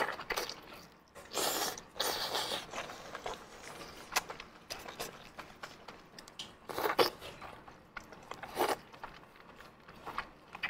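A person biting and chewing braised pork intestine: wet, squishy mouth sounds coming in irregular bursts, the loudest about seven seconds in.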